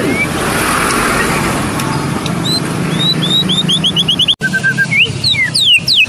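White-rumped shama singing: a quick run of short whistled notes that speeds up, a few lower notes, then fast falling whistles near the end. A passing vehicle makes a swell of noise in the first two seconds, over a steady low engine hum.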